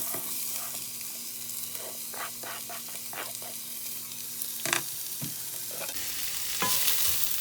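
Chopped onions sizzling in hot oil with cumin seeds in a frying pan, with a few clicks and knocks of a utensil against the pan as they are stirred; one sharper knock comes a little past the middle.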